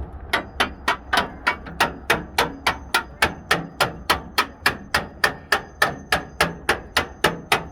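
Hammer striking metal in a steady, even rhythm of about four blows a second, with a faint metallic ring between the blows.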